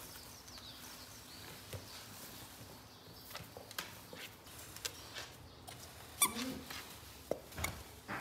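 Two English bulldogs playing over a chew toy on a wooden floor: faint scattered clicks and taps, with a short grunt about six seconds in.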